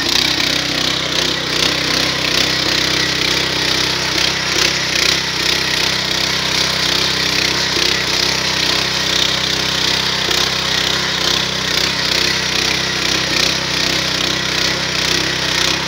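Hortmasz 4 kW walk-behind petrol tiller running steadily under load as its rotating tines work through the soil.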